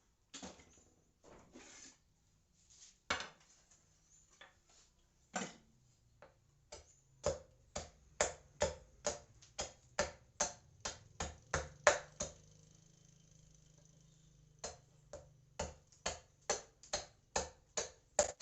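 Hammer blows ringing on steel, as the steel of an old brush-cutter blade is worked into a knife. A few scattered strikes, then a steady run of about two a second, a pause of a couple of seconds, and another run.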